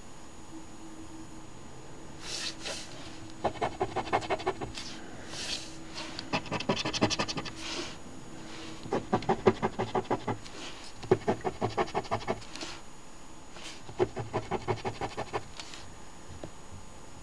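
Coin scratching the latex off a scratch-off lottery ticket in five short bursts of quick back-and-forth strokes, about five strokes a second.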